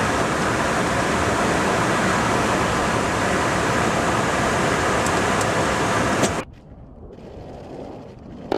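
Steady in-flight roar of airflow and jet engines heard from inside an aerial-refuelling tanker. It cuts off abruptly about six seconds in to a much quieter hush, and a new loud roar starts right at the end.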